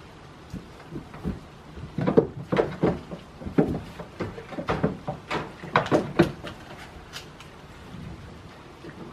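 A rapid, irregular series of knocks and thumps, bunched together for about four seconds and then stopping.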